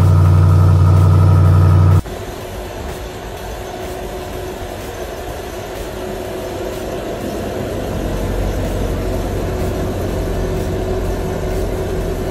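A vehicle engine idling. A loud, steady drone cuts off abruptly about two seconds in, and a quieter, steady low rumble with a faint steady whine follows.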